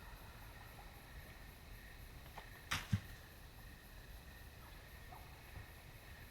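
Quiet night meadow ambience with a faint steady high tone, broken about three seconds in by one short, sudden puff of noise close to the microphone, followed at once by a low thump.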